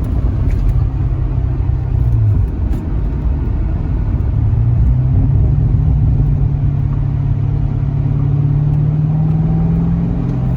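C6 Corvette V8 engine and road rumble while driving through the gears. The engine note drops about two seconds in as a gear is changed, then climbs and holds steady, and drops again near the end at the next shift.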